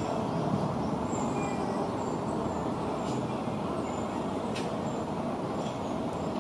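Steady low background rumble, with a few faint, short high chirps over it.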